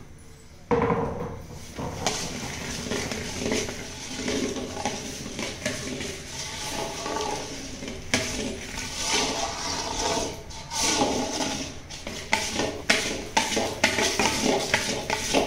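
A long metal ladle stirring roasted peanuts into thick hot syrup in a large iron kadai, mixing them for peanut chikki: a wet churning that starts about a second in, with scrapes and clinks of the ladle against the pan coming more often near the end.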